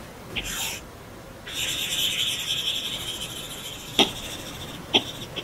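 Apple Pencil 2 tip drawing on an iPad Pro screen: a short scratch, then a scratchy stroke of about two seconds. Two sharp taps of the pencil tip on the glass follow, about a second apart near the end.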